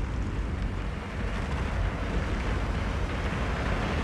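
Avalanche rumbling: a deep, steady rumble under a rushing hiss that grows stronger near the end.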